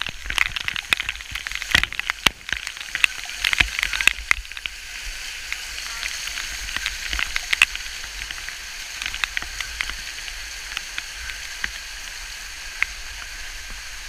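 Waterfall water pouring onto the camera close up: a dense spatter of drops striking it for the first four seconds or so, then easing to a steady hiss of falling water with only occasional drops hitting.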